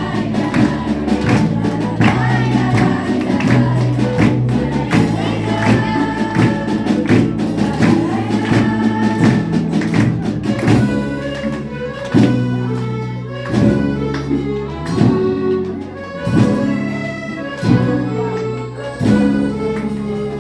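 An orchestra playing live music, with pitched parts over percussion. About halfway through, the playing turns into repeated accented chords, roughly one every second and a half.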